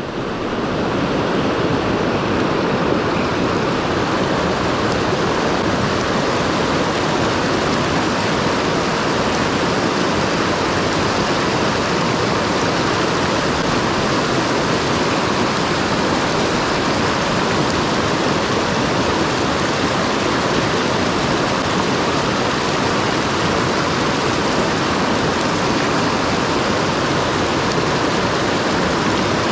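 Mountain stream rushing over rocks: a steady, loud wash of water that fades in at the very start and then holds unchanged.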